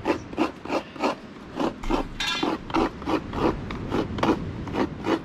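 Fresh coconut half scraped against the blade of a coconut scraper, grating the flesh into a bowl in quick, even strokes about three a second.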